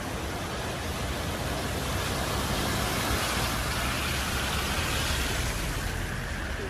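Rushing floodwater: a steady noise that swells about halfway through and eases off near the end.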